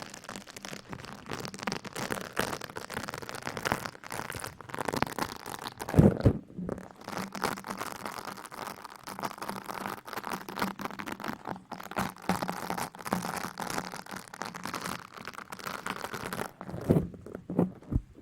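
Close-miked ASMR rustling and crinkling: dense, continuous crackly scratching on the microphone, with a heavier thump about six seconds in and again near the end.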